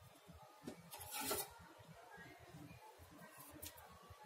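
A faint, brief rubbing scrape about a second in, then only faint handling noise.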